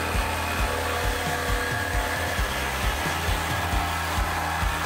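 A cordless 20 V jigsaw, the NRT Pro JV65DC, runs steadily as it cuts through a wooden board. Background music with a steady beat plays over it.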